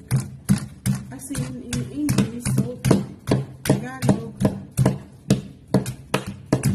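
Kitchen knife slicing a raw banana blossom in quick, crisp strokes, about two to three cuts a second, over background music and a voice.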